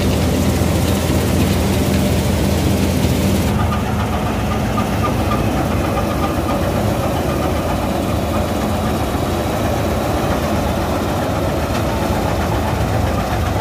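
Gill 961 combine harvester's diesel engine and threshing machinery running steadily under load. Heard close up while grain is augered into a trailer, with a strong hiss on top. About three and a half seconds in, the sound switches to the combine cutting wheat, with the hiss much reduced.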